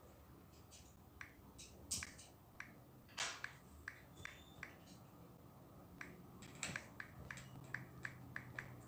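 Small sharp plastic clicks of LEGO pieces being handled and knocked about. They come irregularly at first, the loudest about three seconds in, then speed up to about three ticks a second near the end.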